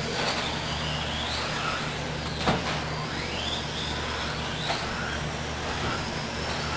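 Electric RC buggies' brushless motors whining, the pitch rising and falling as they accelerate and brake, over a steady low hum. There is a sharp knock about two and a half seconds in and a lighter one near the end.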